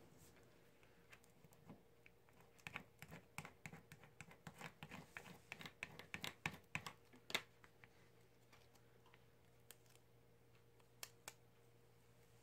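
Faint, irregular crackling and clicking of a sheet of cut vinyl lettering on transfer tape being handled and pressed down on a cutting mat, busiest for a few seconds, then only a few isolated ticks. A faint steady hum runs underneath.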